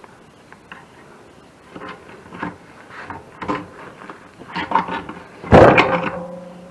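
A thin metal tool scraping and clicking along the steel gasket channel of a wood-furnace firebox door as the old rope gasket is pried out. Near the end comes one loud metallic clang that keeps ringing.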